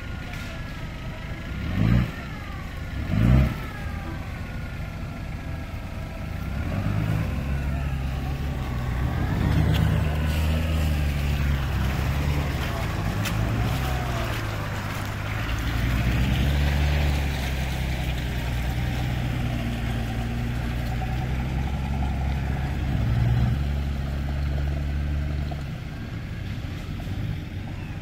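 Two loud thumps about two and three seconds in. Then an off-road 4x4's engine revs up about six seconds in and runs hard under load through mud, holding steady, and eases off near the end.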